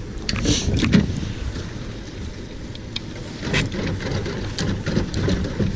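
Low, fluctuating rumble of wind buffeting the microphone on a small boat, with a few sharp clicks and knocks from handling around one second in and again after about three and a half seconds.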